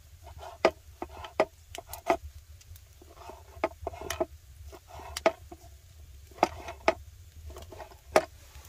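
Knife chopping roasted green peppers on a wooden cutting board: irregular sharp taps of the blade on the board, about nine strong ones, with soft squishy cuts through the pepper flesh between them.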